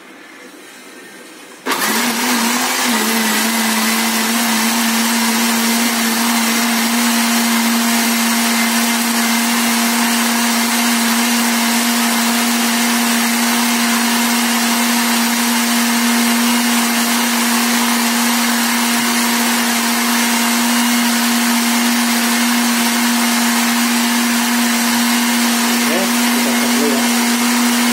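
Electric blender switched on about two seconds in and running steadily at one speed, churning a wet bait mix in its jug; the motor hum wavers briefly as it comes up to speed.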